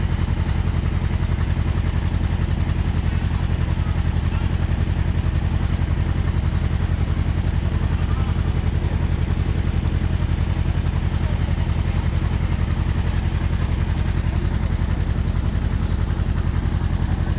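Tourist boat's engine running steadily with an even low throb while underway, with a constant rush of water and wind over it.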